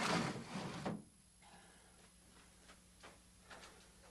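Wood sliding against wood for about a second, then a few faint knocks.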